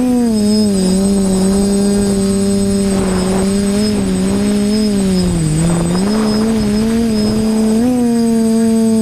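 TBS Discovery quadcopter's electric motors and propellers running in flight, a steady drone whose pitch rises and falls with throttle, with gusts of wind rushing past now and then.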